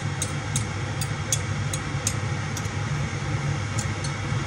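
Light metallic clicks and taps of a fork scraping pressed garlic off a metal garlic press over a ceramic bowl, over a steady low hum and hiss.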